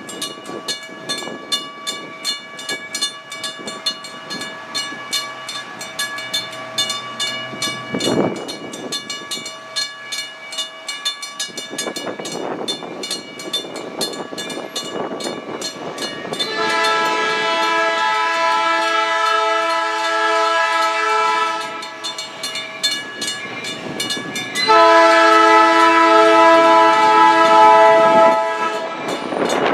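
US&S teardrop mechanical crossing bells ringing with rapid, even strokes at an active grade crossing. A diesel locomotive's air horn sounds two long blasts for the crossing, the second louder, about halfway through and near the end.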